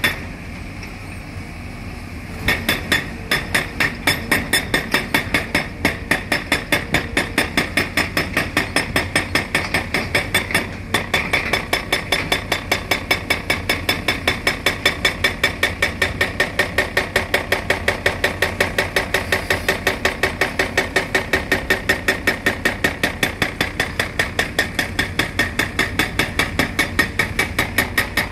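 Atlas Copco hydraulic hammer on a CAT excavator breaking concrete: a fast, even hammering of about four blows a second. It stops for about two seconds near the start, then runs on, with one short break near the middle.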